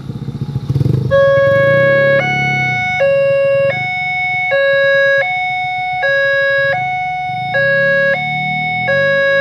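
Railway level-crossing warning siren starting about a second in: an electronic two-tone hi-lo signal, switching between a lower and a higher tone about every three-quarters of a second.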